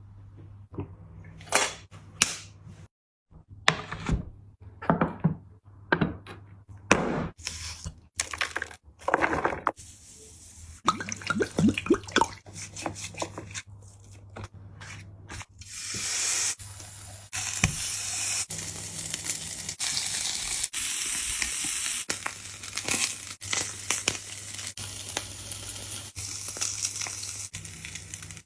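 Close-miked eating and drinking sounds: short wet mouth noises and slurps in the first half, then from about halfway a denser, steadier wet hissing and crackling.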